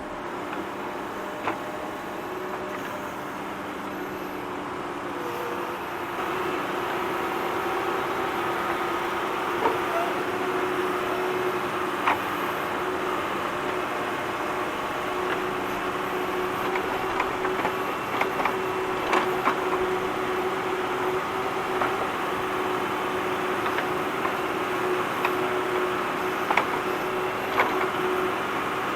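Tractor engine running steadily while digging, with scattered sharp knocks over the engine sound. It gets a little louder about six seconds in.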